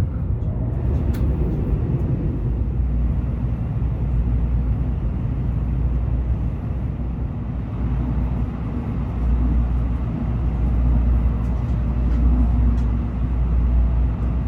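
Steady low rumble and hiss of a Tokaido Shinkansen Kodama train running, heard from inside the passenger cabin.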